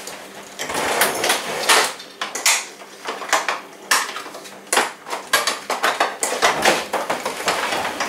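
Hard plastic vacuum cleaner attachments and parts being rummaged through and handled: a quick run of clacks and knocks with rustling in between.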